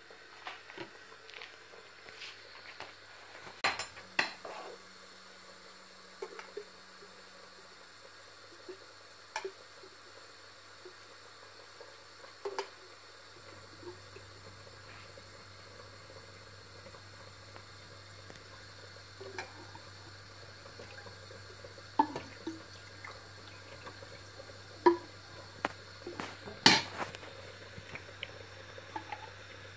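Scattered clinks and taps of a metal spoon and a plastic bottle against a small ceramic ramekin on a countertop, with a little liquid poured in; the sharpest knock comes near the end.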